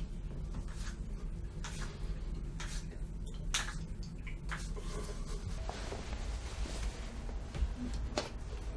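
Faint rustling of clothing and scattered small knocks and clicks as a man handles his trousers and gets dressed, over a low steady room hum.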